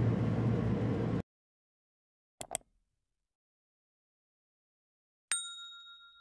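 Steady room hum that cuts off about a second in, then end-card sound effects: two quick mouse-click sounds as the cursor clicks Subscribe, and near the end a single notification-bell chime that rings out and fades.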